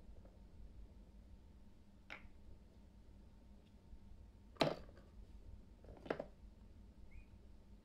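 Plastic toy tea set pieces being set down and handled: a faint click about two seconds in, then two sharper clacks of plastic on plastic a little after four and a half and six seconds in, over a faint low hum.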